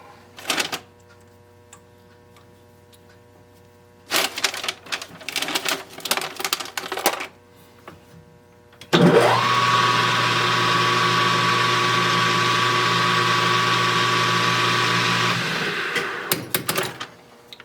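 Metal clatter of tooling being handled, then a small metal lathe's motor starting about halfway through, its whine rising quickly to a steady pitch and running for about six seconds while center drilling, then switched off and winding down, followed by a few clicks.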